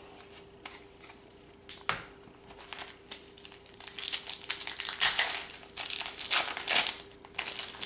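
Crinkling of a trading-card pack wrapper being handled and torn open, a few light clicks at first, then a run of dense crackling from about the middle to near the end.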